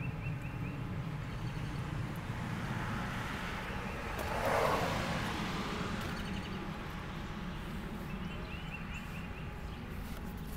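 Outdoor background with a steady low rumble and a passing vehicle whose sound swells to a peak about halfway through and then fades. Faint bird chirps come in near the end.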